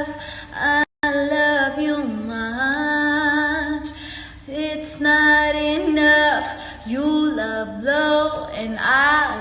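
A female voice singing solo: long held notes with vibrato, sliding runs and turns between them. There is a brief drop-out just under a second in.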